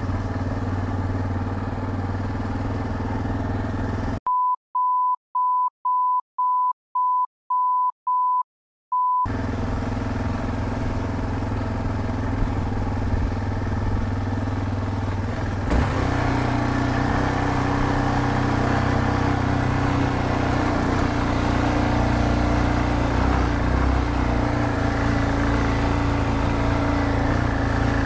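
Yamaha XT660Z Ténéré's single-cylinder engine running steadily while riding. About four seconds in, the engine sound drops out for about five seconds, replaced by a run of about eight short beeps of one steady tone, the last a little longer. After that the engine comes back, and its note rises slightly about halfway through.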